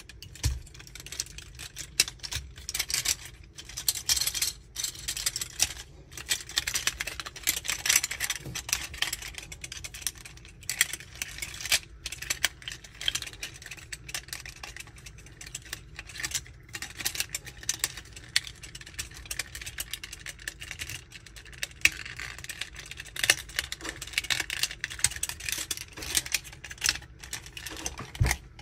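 Magic Square MS-02 Light of Peace transforming robot figure being transformed by hand: its plastic parts click, snap and rattle in quick, irregular bursts as joints are rotated and panels are folded into place.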